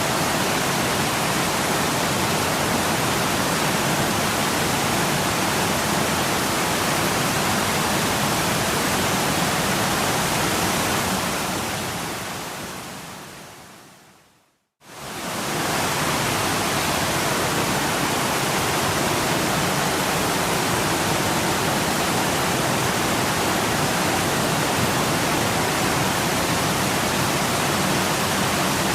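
Waterfall rushing in a steady, even roar. About halfway through, it fades away to silence over a few seconds, then cuts back in suddenly at full level.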